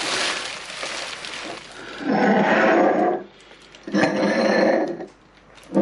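Plastic bubble wrap crinkling as a glass is pulled out of it. Then come two loud, drawn-out wordless vocal sounds from a man, each about a second long.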